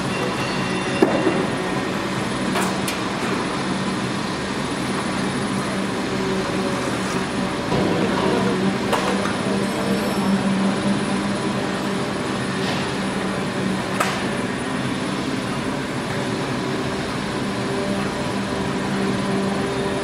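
PET stretch blow molding machine running, its preform chain conveyor carrying preforms through the infrared heating oven: a steady mechanical drone with a low hum, broken by a few sharp clicks.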